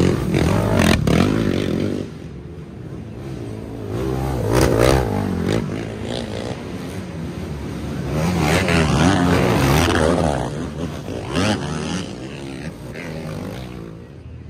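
Racing ATV engines revving hard under load on a hill climb, several quads passing in turn, each engine's pitch swinging up and down as it comes and goes.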